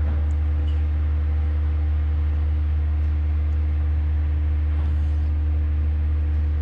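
A loud, steady low hum runs throughout, with a few faint light clicks as a small plastic wire connector is handled.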